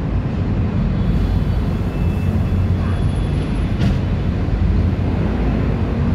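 Mercedes-Benz city bus engine running with a steady low rumble as the bus turns in and pulls up close by, with a brief high hiss about four seconds in.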